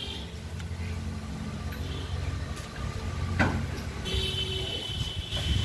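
Road traffic going by: a steady low rumble of vehicle engines, with a brief sharp sound about three and a half seconds in and a high steady tone joining about four seconds in.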